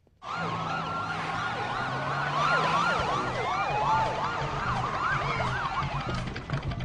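Several sirens yelping at once, their pitch sweeping up and down in quick overlapping arcs over a low steady hum. They start suddenly just after the beginning.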